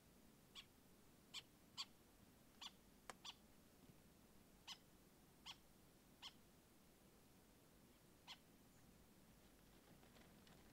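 Faint, short, high calls from an animal, about ten of them at irregular intervals, over a quiet background hiss.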